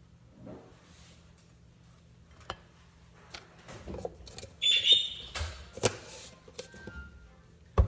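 Kitchen handling sounds: a knife spreading peanut butter on bread, then clicks and a short rasp as the jar's lid is screwed on about five seconds in, and a sharp thump near the end.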